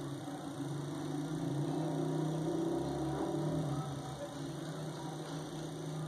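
A steady low hum of an engine or motor running, a little louder in the middle.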